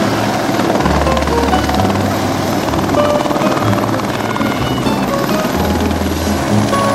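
Light helicopter (Eurocopter Écureuil type) running on the ground, its main rotor turning, with steady engine and blade noise. Background music with bass notes plays over it.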